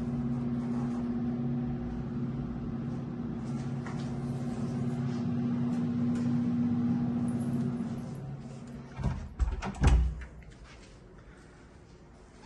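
Steady low hum in a small, tiled bathroom, which fades out about eight seconds in, followed by a few loud, dull thumps about nine to ten seconds in.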